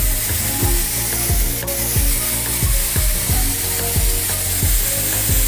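Siphon-feed airbrush spraying blue paint: a steady hiss of compressed air and paint mist. Background music with a steady beat plays underneath.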